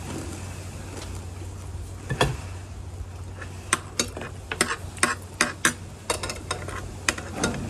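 Eating sounds at a table: short sharp clicks and light clinks, one about two seconds in and then a loose, irregular run of them through the second half, over a steady low hum.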